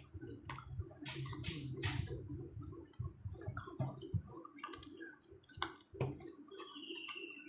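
Hands opening and handling a small product box: scattered clicks, taps and rustles of cardboard and plastic packaging, with a brief high falling squeak near the end.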